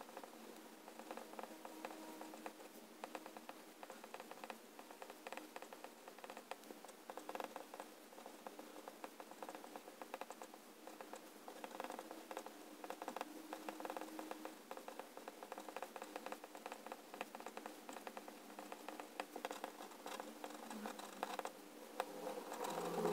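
A Pilot Prera fountain pen with an extra-fine Penmanship nib scratching across Rhodia dot-pad paper as handwriting is written: a continuous run of small, quick scratches and ticks following the strokes of the letters.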